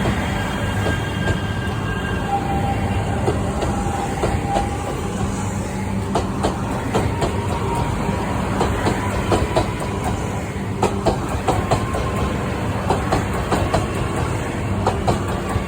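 A train running on rails: a steady rumble with faint squealing tones from the wheels, and clacks over rail joints that come thicker in the second half.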